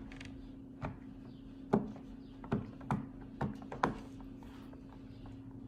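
Silicone Pop It fidget toy's bubbles being pressed through, making a series of short sharp pops at irregular spacing, roughly one every half second.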